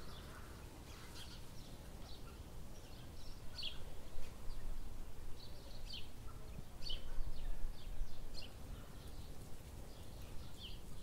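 Small birds chirping, short high calls scattered every second or so, over a steady low outdoor rumble.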